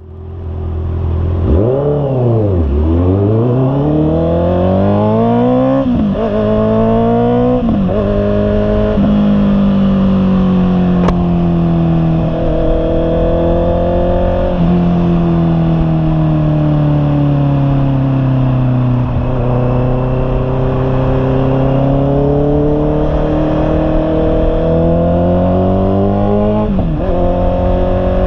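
Honda CB650R's inline-four engine through an aftermarket 'imba pure' muffler. It revs up and down once about a second in, then accelerates up through the gears, the pitch climbing and dropping at each shift. It then settles into a cruise with slow rises and falls in pitch, and there is one more quick drop and climb near the end.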